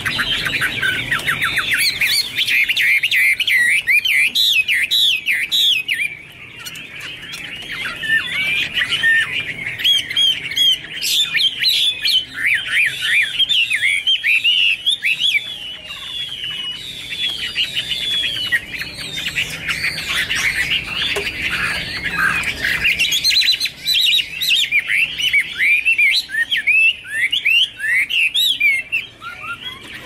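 Chinese hwamei (melodious laughingthrush) singing a fast, continuous song of short notes sliding up and down in pitch. The song eases briefly about six seconds in and again near the end.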